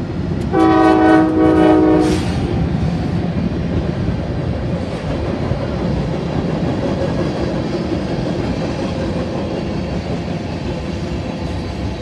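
CSX freight locomotive horn sounding one chord blast of about a second and a half, followed by the steady rumble and clatter of freight cars rolling across a steel railway bridge.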